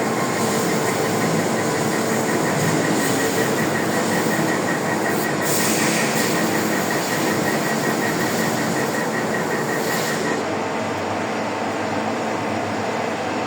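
CNC machine running a cut: a steady mechanical whir and hiss with a fast, even high ticking. About ten seconds in, the ticking and the hiss stop, leaving a lower hum.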